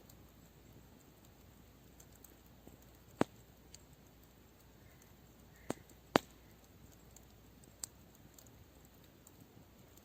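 Campfire wood crackling: a few scattered sharp pops over a faint steady hiss, the loudest pair about six seconds in.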